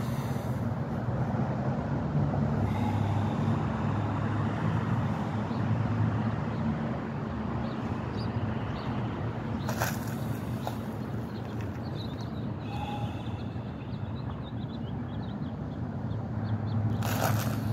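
Steady low rumble of a vehicle engine running, with two short hisses, one about ten seconds in and one near the end.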